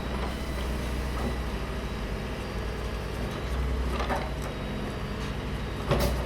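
Heavy vehicle engine running steadily, with a knock about four seconds in and a louder one near the end.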